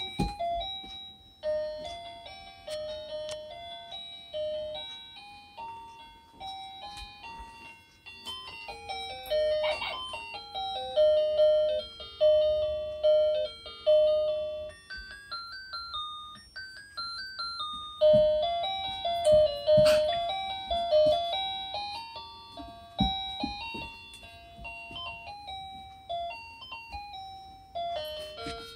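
A simple electronic tune plays in short, tinny beeping notes, one note at a time. A few dull thumps come about two-thirds of the way through.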